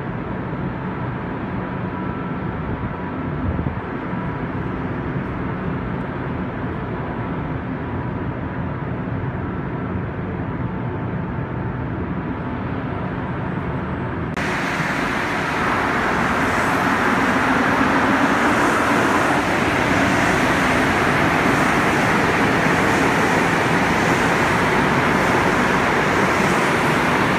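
Montreal Metro MR-73 rubber-tyred train: first a steady hum with faint whining tones and a single thump a few seconds in while the train is at the platform. About halfway an abrupt cut brings a louder, steady rushing run as a train pulls out of the station.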